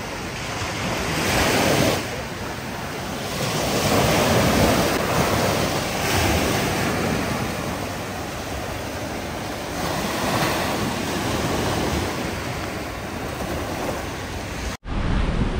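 Sea surf washing onto a sandy beach, swelling and easing with each wave, with wind buffeting the microphone. The sound drops out for an instant near the end.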